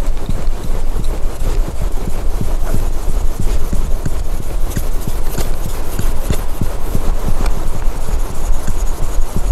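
A Korean hanok chisel being sharpened on a whetstone: the steel blade rubs back and forth across the stone in quick, even strokes, about three a second.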